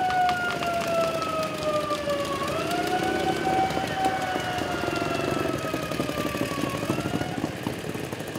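A siren wailing: its pitch sweeps quickly up, then slides slowly down over a few seconds, twice over. Motorcycle engines run beneath it as they pass.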